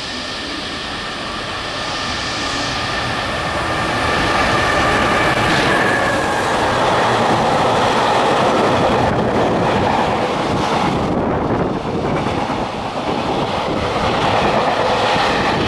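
EF210 electric locomotive and its train of container wagons passing through at speed. The sound grows louder over the first four seconds and then holds as a steady noise of wheels running on the rails, with a thin high tone during about the first six seconds.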